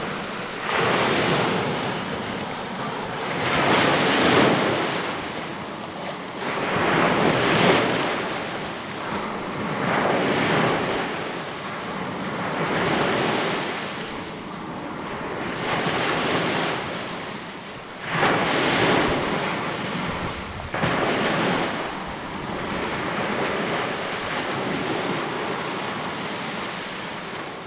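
Sea waves surging, a steady wash of surf that swells and falls every two to four seconds.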